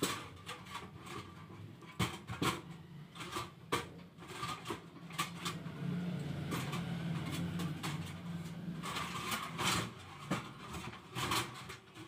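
Hands working wires and tools on a workbench: scattered sharp clicks and taps. A low steady hum swells for a few seconds in the middle.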